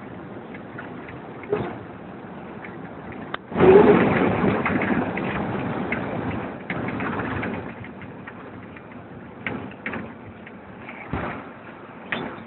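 Road and engine noise of a car being driven, with a much louder rush of noise that starts suddenly about three and a half seconds in and eases off over about four seconds, and a few brief knocks later on.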